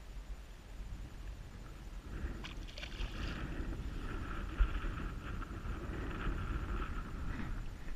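Spinning reel working under the load of a hooked fish on a bent rod: a sustained whir of fast, fine clicks that starts a couple of seconds in and runs for about five seconds, over a low rumble of wind and water.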